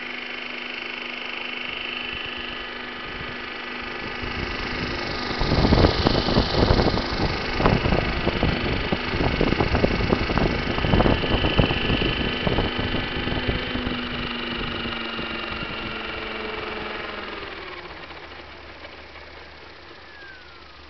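A 30/550-size electric-converted Century Bell Jet Ranger RC helicopter, with a steady whine from its electric motor and clutch-drive gearing and its rotor running. Through the middle there is loud, gusty buffeting as it hovers close and its rotor wash hits the microphone. Near the end, after it lands, the motor and rotor spool down, the whine falling in pitch.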